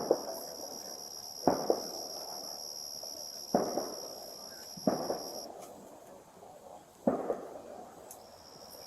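A series of sharp pops or knocks, one every second or two, each with a short echoing tail. Under them runs a faint steady high whine that drops out for a few seconds past the middle.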